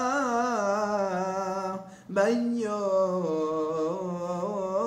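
A man's voice chanting Hebrew Torah cantillation in the Constantine (Algerian Jewish) tradition, drawing a word out in long, wavering melismatic ornaments, with a short breath about two seconds in.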